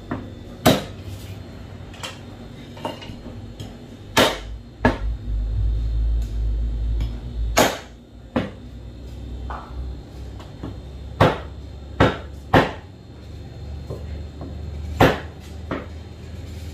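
Butcher's cleaver chopping a leg of mutton into pieces through meat and bone on a wooden tree-stump block: a dozen or so sharp chops at irregular intervals. A low rumble runs for a few seconds in the middle.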